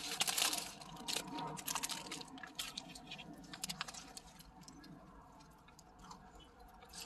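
Close-up chewing of a person eating a burger, with scattered small clicks and crackles that grow fainter toward the end.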